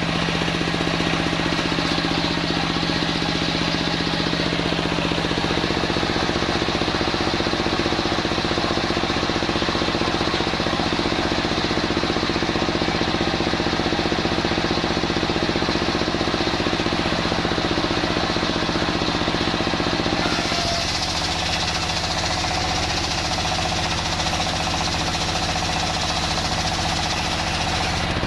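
Home-built circular saw machine running steadily as it saws old timber, a continuous machine drone that changes in character about twenty seconds in.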